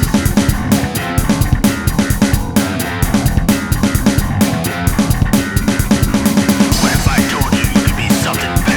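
Rock song played by a band: a drum kit keeps a fast, steady beat under guitar and bass.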